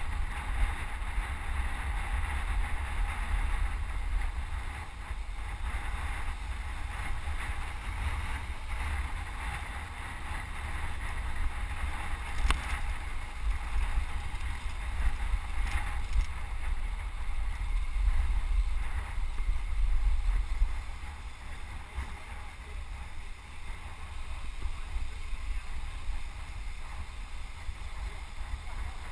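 Wind buffeting the microphone of a helmet-mounted action camera on a road cyclist riding at speed. The low rumble eases about two-thirds of the way through.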